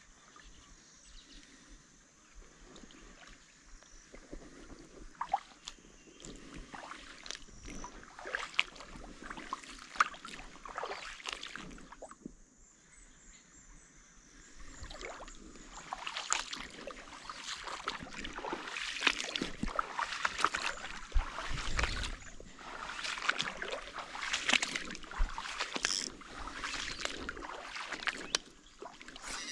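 Kayak paddle dipping and splashing in water, an irregular run of splashes and drips that grows louder and busier about halfway through.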